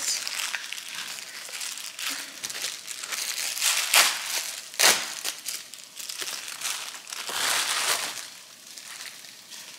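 Plastic Amazon Prime bubble mailer crinkling as it is torn open and handled, with two sharp, louder crackles about four and five seconds in.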